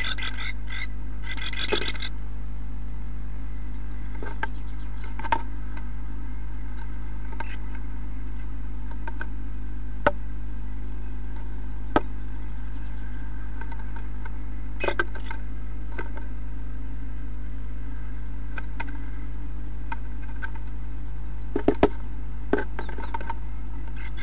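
A tit moving about inside a wooden nest box, its claws and bill making scattered sharp taps and short scratchy flurries on the wood, with a quick scraping flurry near the start. Under them runs a steady electrical mains hum.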